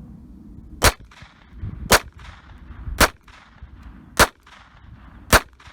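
Walther P22 .22 LR pistol fired five times at a steady pace about a second apart, each sharp crack trailed by a short echo.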